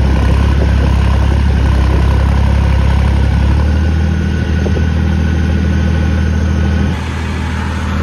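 Tractor diesel engine running steadily under load while pulling a cultivator, its note shifting a little about halfway through and easing slightly near the end.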